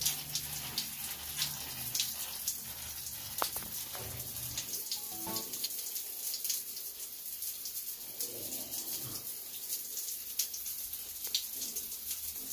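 Water spraying in thin streams from a homemade plastic-plate rain shower head and splashing onto a concrete floor: a steady hiss with many small ticks of falling drops.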